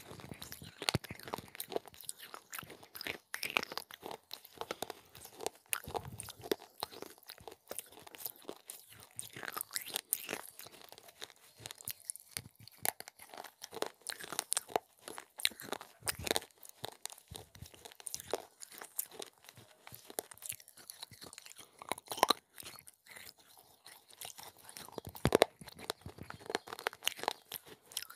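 Broken clay pot pieces, dipped in a white cheese dip, being bitten and chewed: dense, irregular crunching and sharp cracks, the loudest near the end.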